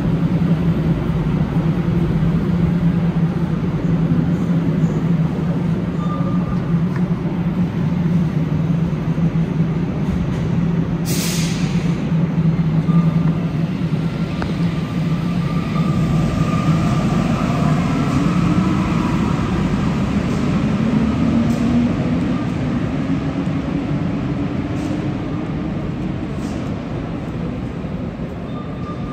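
Alstom NS-93 rubber-tyred metro car heard from inside while running: a steady low drone, then a motor whine that rises slowly in pitch through the second half. A short hiss comes at about eleven seconds.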